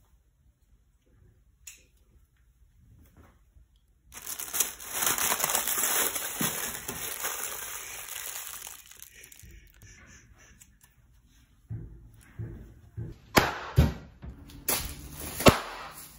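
Clear plastic packaging air pillows: several seconds of loud crinkling close up, then a string of sharp cracks and pops over the last few seconds.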